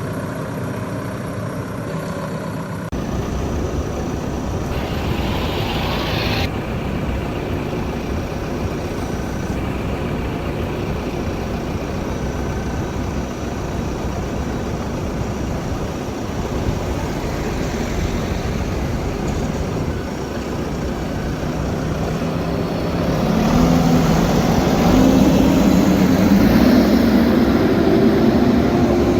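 JCB backhoe loader's diesel engine running: steady at first, changing abruptly to a rougher, noisier sound about three seconds in, and growing louder over the last several seconds as the machine works.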